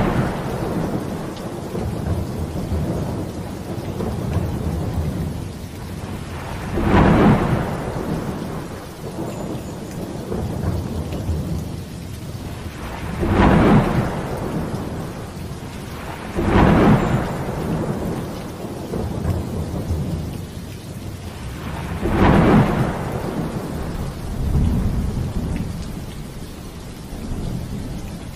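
Heavy rain falling steadily, with thunder breaking in about five times, each clap a short swell of about a second with a low rumble.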